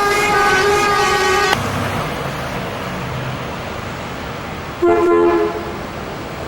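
Coach horns honking: a long multi-tone blast that cuts off about a second and a half in, then a shorter blast about five seconds in, over the low rumble of vehicle engines and traffic.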